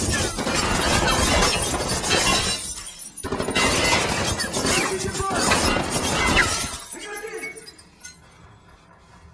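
Loud crashing and shattering noise from an action-film sound mix, in two spells with a short break about three seconds in, dying away after about seven seconds.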